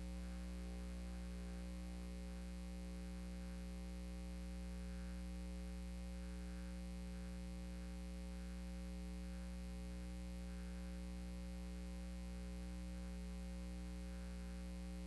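Faint, steady electrical mains hum in the recording: a low buzz of several unchanging tones, with no other sound.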